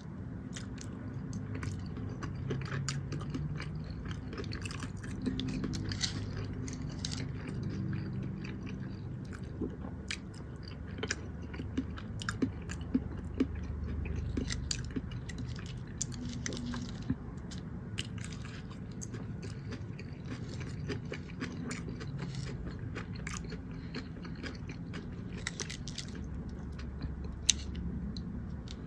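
Close-miked chewing of a meal of chicken in gravy, spinach and baked potato, with frequent wet mouth clicks. A few sharper, louder clicks come around the middle and near the end.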